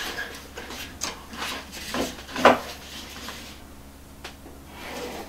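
A cardboard template being pressed and shifted against a plywood ceiling: scattered rubs and light knocks, the loudest about two and a half seconds in.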